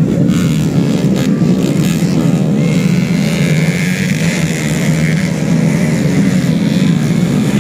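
Several taxi gabah race motorcycles (modified grain-hauling motorbikes) running and revving together on a dirt track, their engine notes rising and falling.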